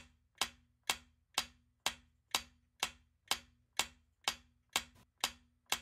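Quiz countdown-timer tick sound effect: sharp, clock-like ticks at an even pace of about two a second, each with a short low tone after it.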